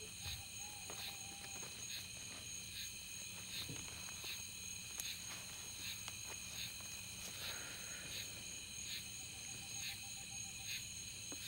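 Crickets chirping in a steady night chorus, with a regular pulse about every three-quarters of a second.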